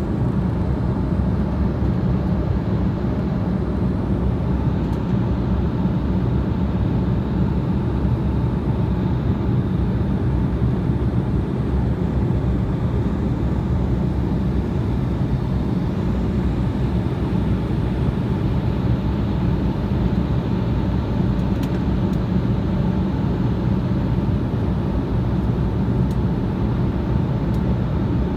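Airliner cabin noise in flight: a steady drone of engines and rushing air.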